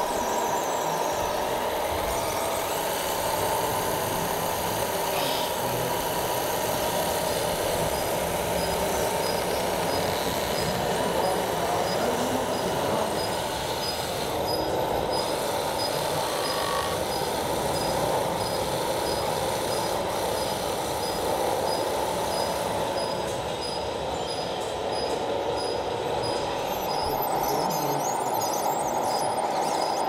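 Radio-controlled scale construction machines working: a steady mix of small electric motors and whining gear and hydraulic pumps. A faint, regular high-pitched beeping joins about a quarter of the way in.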